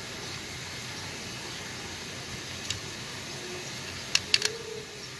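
Small sharp clicks of a screwdriver tip against a diecast toy car's plastic base: one click about halfway through, then three in quick succession near the end, over a steady hiss.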